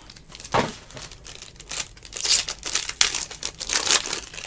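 A foil trading-card pack wrapper crinkling and tearing as hands pull it open, the crackling loudest in the second half.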